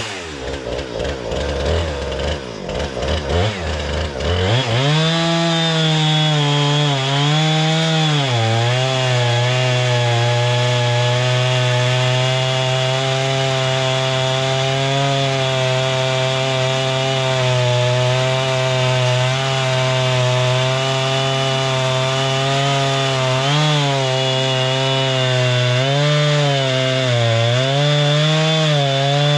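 Norwood MX34 portable bandsaw mill's gas engine revving up about four seconds in, then running steadily at high speed while the blade cuts through a log. Its pitch dips briefly several times as it labours in the cut.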